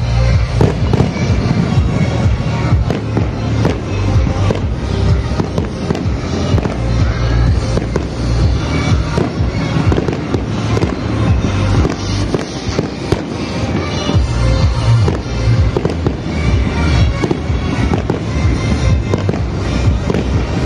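Aerial fireworks bursting in quick succession, with many sharp bangs throughout, over loud music with a heavy bass line.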